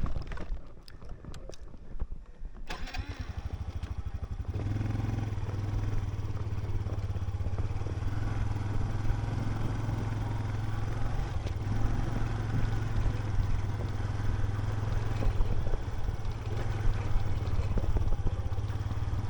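Motorcycle engine starting about three seconds in, then running steadily.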